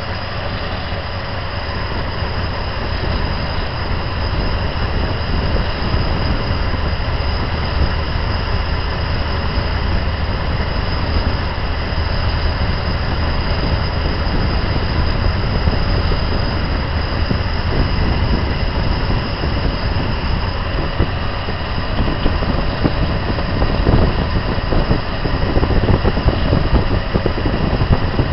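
AMC 360 V8 engine idling steadily, heard up close at the carburetor, while its idle mixture is being tuned. The running gets a little louder and less even near the end.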